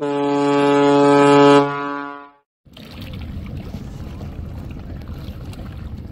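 A passenger launch's horn sounds one long steady blast of about two seconds, swelling and then dying away. After a brief gap, steady wind noise on the microphone follows.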